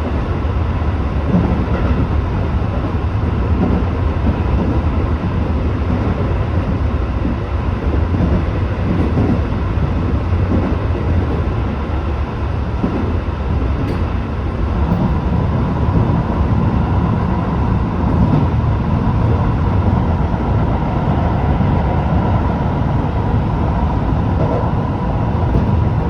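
Tobu 8000-series electric train (car 8111) running at speed: a steady, loud rumble of wheels on rail and running gear, with a faint constant whine, heard from inside the leading car.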